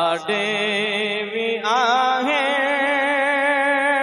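A man singing a Punjabi devotional kalam into a microphone, drawing out long held notes that waver with ornamented vibrato.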